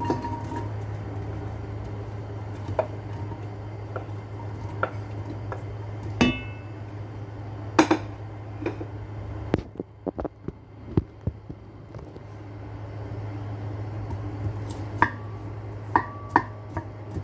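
Kitchenware clinking and knocking against a white enamelled pot: a plate tipped against its rim and a spoon worked inside it. There are a few sharp clinks scattered through, some of them ringing briefly, and a quick run of them near the end, over a steady low hum.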